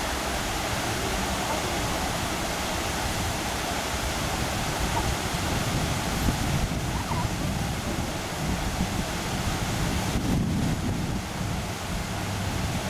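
Steady rush of water spilling over a low weir, with a low rumble underneath that grows louder toward the end.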